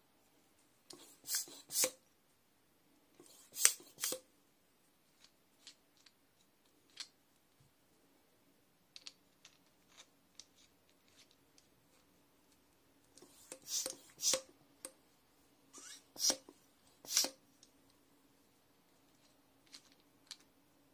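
Small clicks and scrapes from handling an aluminium mini bike pump, its threaded hose connector being twisted at the pump head. They come in short clusters, about a second in, around four seconds, and twice more after the middle, with light ticks in between.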